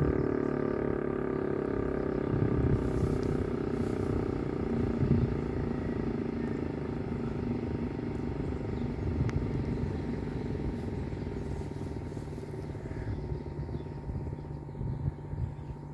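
DS977 siren winding down at the end of its test: a low drone whose pitch sinks as it fades steadily away.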